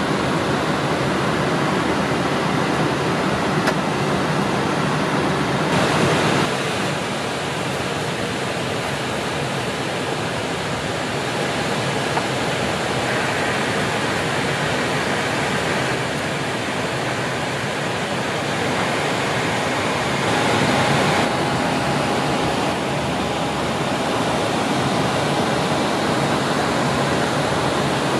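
Steady rushing airflow noise on an airliner's flight deck in cruise, a smooth even hiss that shifts slightly in level a few times.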